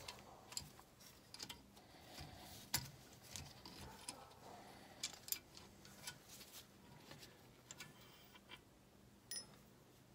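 Faint, scattered metallic clicks and clinks of a valve spring compressor being worked and eased off a valve spring in a Kohler K241 engine, with a brief ringing metal click near the end.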